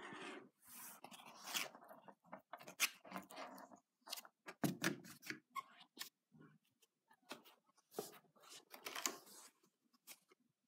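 Paper rustling and flapping as sketchbook pages and a stuck-in sheet of black paper are lifted and laid back by hand, with scattered light taps and scrapes.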